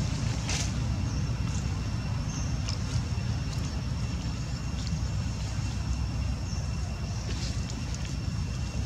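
Outdoor background noise: a steady low rumble with a thin, steady high whine over it and a few soft clicks or rustles. No monkey calls are heard.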